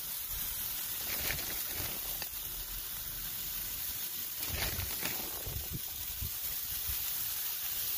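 Shredded cheese sizzling as it fries on a hot, oiled Blackstone flat-top griddle, a steady hiss.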